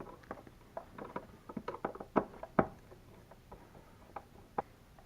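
Light, irregular clicks and taps of a screwdriver and a new wall outlet receptacle being handled as the receptacle is snugged and pushed back into its electrical box.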